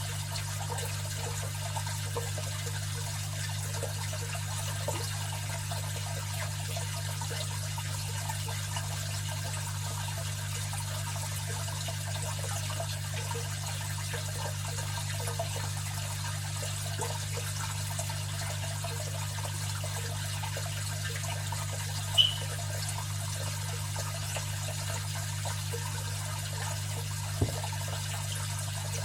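Aquarium filter running: water trickling and splashing over a steady low hum from its pump. A short high ping about three quarters of the way through, and a single tick near the end.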